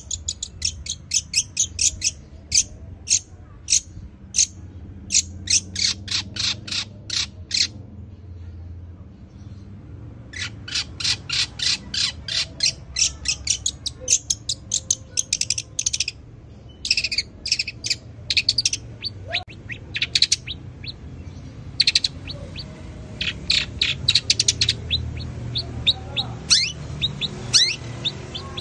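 Long-tailed shrike (cendet) singing in rapid runs of short, sharp chirps, several a second, in the chattering style of a tree sparrow's calls that it is kept to mimic. There is a pause of about two seconds roughly a third of the way in.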